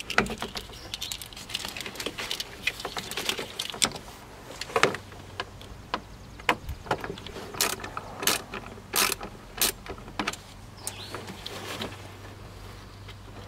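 Hand ratchet with a 7/32 socket clicking in quick runs as it turns out the screws holding a van's blower motor, with scattered sharper clicks and taps of metal on metal.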